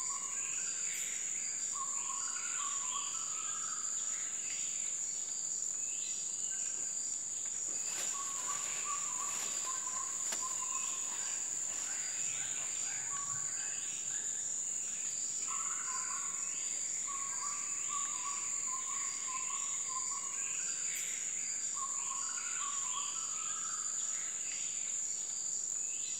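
Tropical forest insect chorus at nightfall: a steady high-pitched drone with a faint pulsing trill beneath it. Short chirping calls come and go over it.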